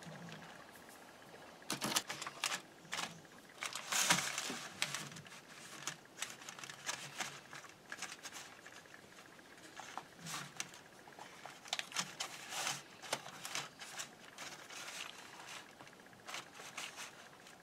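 Crinkling and rustling from hands pressing and smoothing a raw pie crust into a foil-wrapped baking pan, in irregular bursts. The loudest burst comes about four seconds in.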